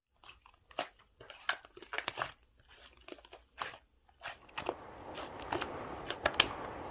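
Scattered small clicks and crinkles of handling noise, then a faint steady hiss from about four and a half seconds in.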